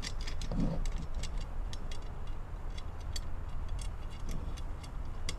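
Small metal clicks and taps of an M6 nylon-insert lock nut being threaded by hand onto a bolt through a steel bracket on a transmission cooler, scattered irregularly, over a steady low background rumble.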